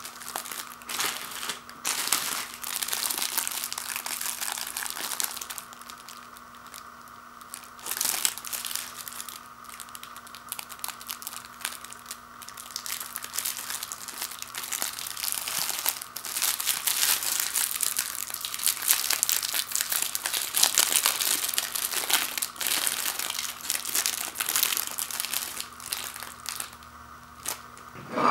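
Foil pouches of Pop-Tarts toaster pastries crinkling in bursts as they are handled and one is pulled open.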